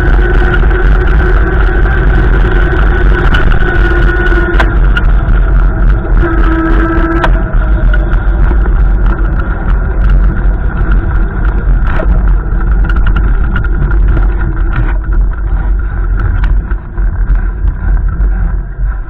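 Storm wind buffeting the microphone in a heavy, steady rumble, with a few steady humming tones above it.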